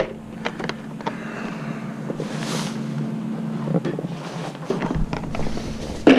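A socket set being fetched and handled: scattered light clicks and knocks of tools and a plastic case, with a louder knock near the end, over a steady low hum.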